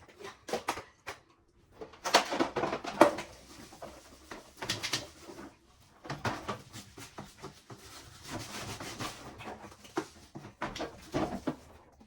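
Clatter and rubbing of fridge drawers and shelves being handled and cleaned: irregular knocks and clicks with stretches of scrubbing noise, loudest about two to three seconds in.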